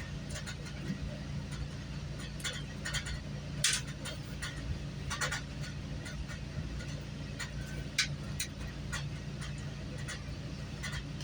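Steady low drone of a moving GO Transit commuter train heard inside the coach, with scattered short clicks and rattles.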